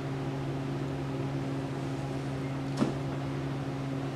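A steady low hum of room tone, with a single short click a little under three seconds in.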